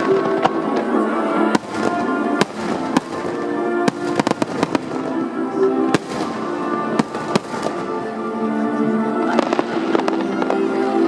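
Fireworks shells bursting one after another, sharp bangs and crackles every second or so, over music with long held notes.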